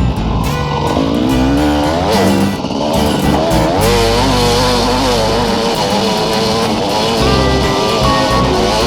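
Small motorcycle engine revving up and down as it rides, with music playing over it.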